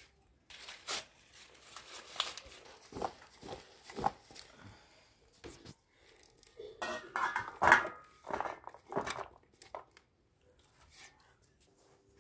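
Food being served from a metal pot onto a metal plate: a spoon scraping and clinking against the metal, and soft lumps of boiled taro and beans landing. There are many short clicks and scrapes, busiest and loudest between about seven and nine seconds in, then only faint ticks near the end.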